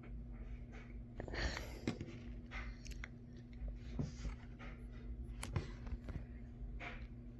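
Faint handling noises of a plastic Blu-ray case being held and turned: scattered small clicks and rustles at uneven intervals, over a steady low hum.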